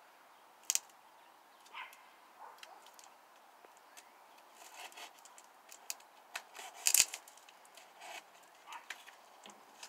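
Small knife slitting packing tape and cardboard at the end of a long shipping box: scattered scratches and sharp clicks, the loudest about seven seconds in.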